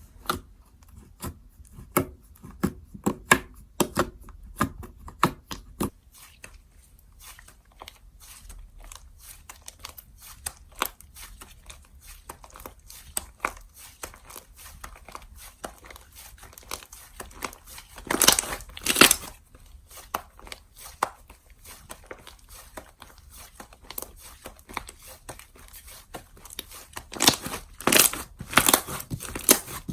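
Slime being squished, poked and stretched by hand, giving a continual run of sharp little clicks and crackling pops. The clicks come thicker and louder in two clusters, about eighteen seconds in and again near the end.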